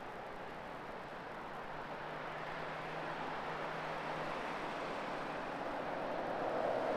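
Road traffic: cars driving past, a steady rush of tyres and engines that grows louder toward the end.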